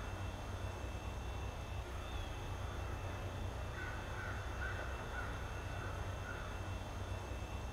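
Crow cawing, a run of about five caws in quick succession starting about four seconds in, over a steady low rumble.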